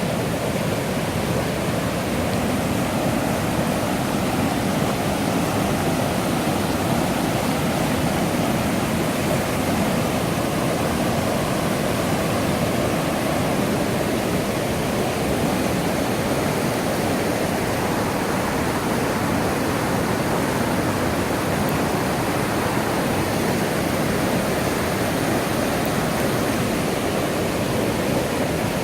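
Rushing water of the Millstone River, a steady, unbroken noise of flowing water over rapids or falls.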